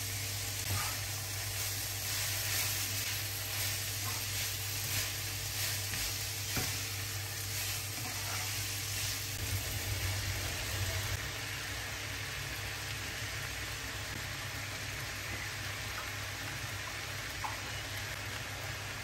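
Shredded vegetables frying in a nonstick frying pan with a steady sizzle. For the first half or so it is broken by scraping and clattering stir noises, and cooked chicken pieces are tipped in around ten seconds in. After that the sizzle goes on more evenly.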